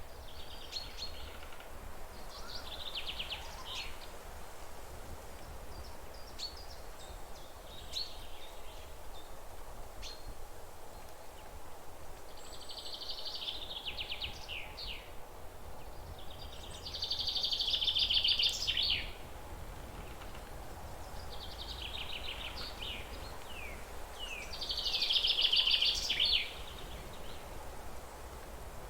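A songbird singing. It repeats phrases of fast, chattering trilled notes every few seconds, and two phrases about two-thirds of the way through and near the end are louder than the rest.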